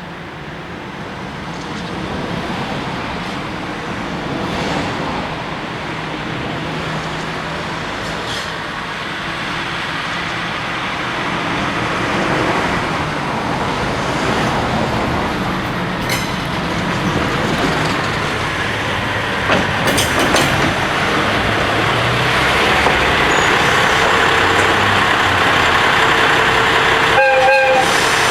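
Freight train approaching on a paper-mill siding, its running noise growing steadily louder. A short horn toot sounds near the end.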